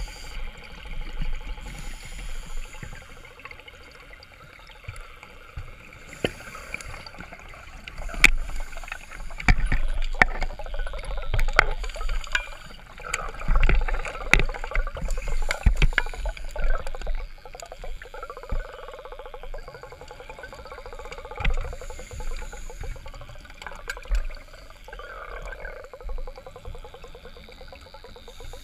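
Open-circuit scuba diver breathing underwater through a regulator, with bursts of exhaled bubbles every few seconds. Sharp clicks and knocks come thick in the middle of the stretch.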